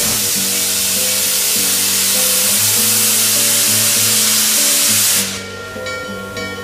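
Norfolk & Western Class J No. 611 steam locomotive venting steam from its open cylinder cocks in a loud, steady hiss that cuts off suddenly about five seconds in. Background music plays underneath.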